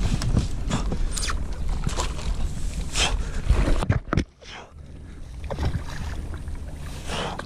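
A big lake trout splashing at the surface beside a kayak as it is steered into a landing net, with knocks and rustles from the rod and net being handled. A low rumble fills the first half and drops away suddenly about four seconds in, leaving quieter water sounds.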